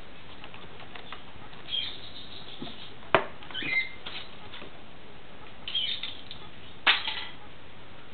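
Pet corella moving about on a tabletop close to the microphone: a few short, high scratchy squeaks and rustles, with two sharp clicks, one about three seconds in and one about seven seconds in.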